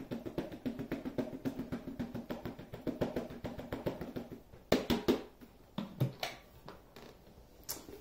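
Debris being emptied by hand from the clear plastic dust bin of a bagless upright vacuum: quick, rapid tapping and rustling as packed dust and hair are pulled out, then a few sharper plastic knocks in the second half.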